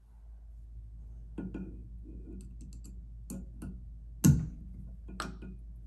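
A scattering of light clicks and taps from handling a shower mixing valve's spring-loaded check valve, its stem pressed and let go so the spring pushes the rubber grommet up. The sharpest click comes a little past the middle.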